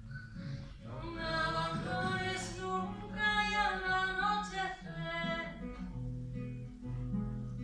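A voice singing long, held notes over a steady accompaniment with guitar; the singing stops about five seconds in while the accompaniment carries on.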